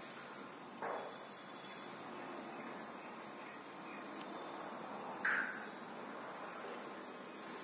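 A cricket trilling steadily on one high, finely pulsing note. A short squeak cuts in about five seconds in.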